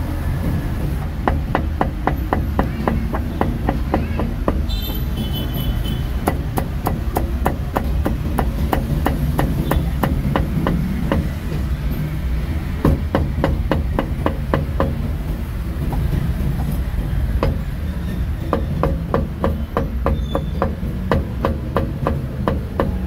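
Cleaver chopping roast meat on a chopping block: rapid, even strokes, about four or five a second, with a short break about two-thirds through, over a steady low background rumble.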